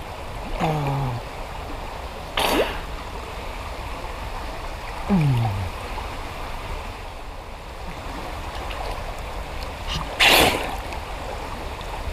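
River water running steadily, with a man's two short grunts that fall in pitch and two short, sharp noises about two and a half and ten seconds in, the later one the loudest.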